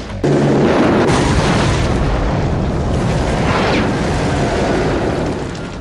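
Film sound effect of a car exploding: a loud blast just after the start, then a long rumble that slowly fades near the end.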